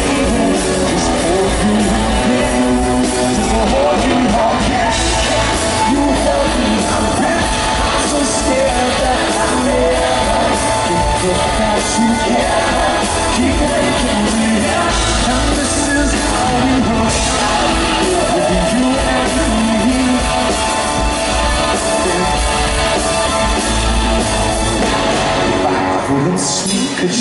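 Live rock band playing loudly with a male lead singer singing over it, recorded from the audience; the bass drops away for a moment near the end.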